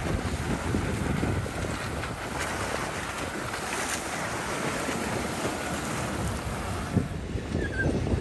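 Wind on the microphone and the rush and splash of water from an inflatable boat's hull and wake as it runs under a near-silent 10 kW electric outboard, with a faint steady whine in the middle. The rush eases near the end as the boat slows.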